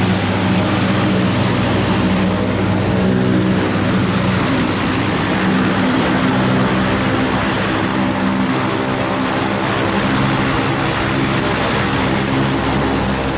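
Light aircraft's piston engine and propeller running steadily at power, a loud continuous drone with a rushing hiss of airflow over it.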